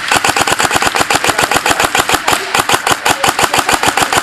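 G&G SSG1 airsoft electric gun firing a sustained rapid string of shots, about ten a second.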